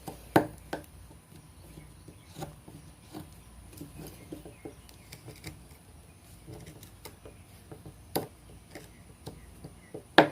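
Tops Bull Trout fixed-blade knife cutting into hard seasoned oak, making irregular sharp knocks and scrapes. The louder strikes come about half a second in, about 8 seconds in, and right at the end.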